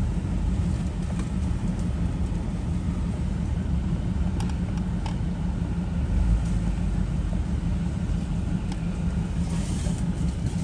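2013 Jeep Wrangler's 3.6-litre V6 engine running steadily off-road, a low drone with a brief swell about six seconds in and a few faint knocks.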